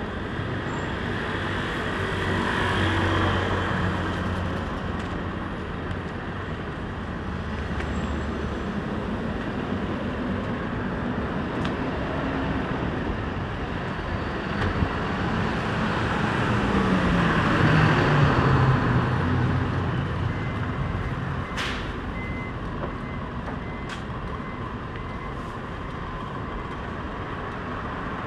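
City street traffic: engines and tyres of cars and buses passing steadily on a multi-lane road. About two-thirds of the way through, one vehicle passes louder, its engine note falling as it goes by.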